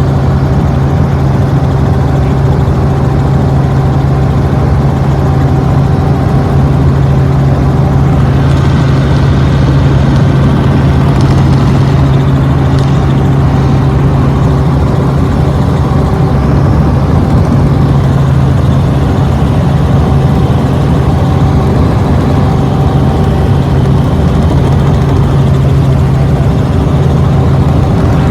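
Aircraft engine droning steadily and loudly, a constant low hum with overtones over a rushing noise.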